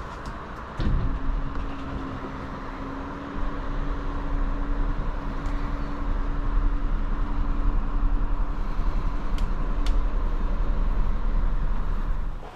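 A vehicle running in the rain over a steady hiss of rain. An engine comes in with a steady low hum about a second in, and a heavier low rumble of driving joins a few seconds later.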